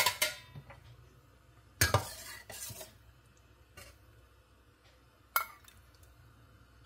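Stainless-steel ladle clinking against steel bowls while dal is scooped and ladled into a small steel bowl: a few sharp clinks, the loudest about two seconds in, one more near the end.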